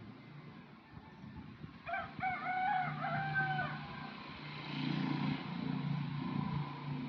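A rooster crowing once, a single call of about two seconds. After it a low, steady rumble carries on.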